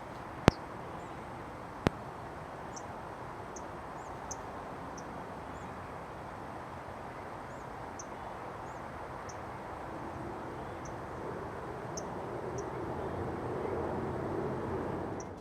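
Small birds giving short, thin, high call notes, about a dozen scattered irregularly over a steady outdoor background hiss, with two sharp clicks in the first two seconds.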